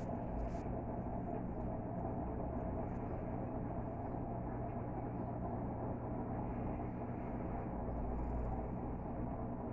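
Electrolux LT12F washing machine running an intermediate spin with a full load: a steady motor hum with a low rumble, swelling slightly near the end.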